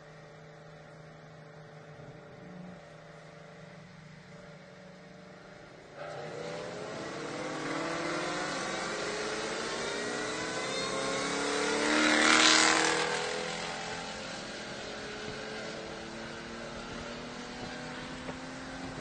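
Vehicle engines accelerating hard in a street roll race, heard from inside a following car's cabin. A steady low cabin hum jumps about six seconds in to a louder engine note that rises again and again. It is loudest about twelve seconds in, then eases back.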